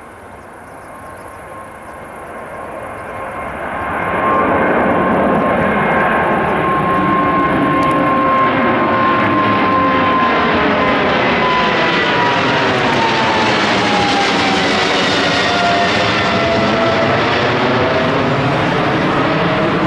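Boeing 777-300ER's two GE90-115B turbofans at takeoff power as the airliner climbs out directly overhead. The jet noise builds over the first four seconds to a loud, steady rush, and a high whine in it drops in pitch as the aircraft passes over.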